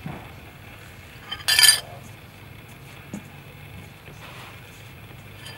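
A single sharp clink of a metal spoon against a bowl about a second and a half in, ringing briefly. Faint soft rustling follows as a hand works beaten egg into rice flour in a steel bowl.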